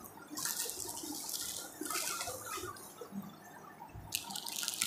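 Rustling and crinkling of folded saris and clothing being handled, in two spells, the second starting near the end.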